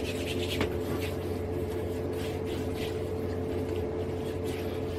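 Soft swishing of hands rubbing lotion together and then over the face, a few faint strokes, over a steady low hum in the room.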